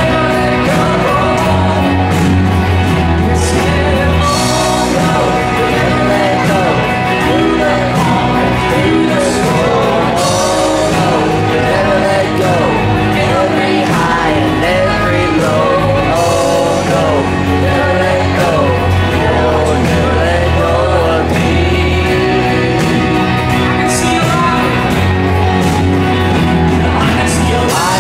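Gospel worship song performed live: a singer over a band with a steady bass line.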